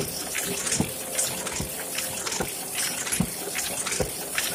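Heidelberg GTO 52 sheet-fed offset press running and printing, a low thump about every 0.8 s as each sheet cycles through, over a steady rushing hiss and light clicking from the mechanism.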